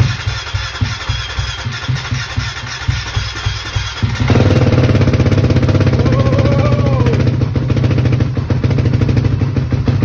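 A KTM 350 single-cylinder four-stroke engine in a home-built monkey bike, running for the first time after the build. It pulses unevenly at first, then about four seconds in it grows louder and is held at higher revs.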